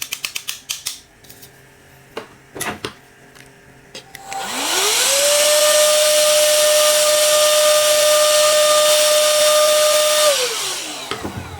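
A few handling clicks and knocks. Then a small electric cleaning tool's motor spins up with a rising whine, runs steadily with a loud airy hiss for about six seconds while the dust-clogged laptop cooling fan is cleaned, and winds down near the end.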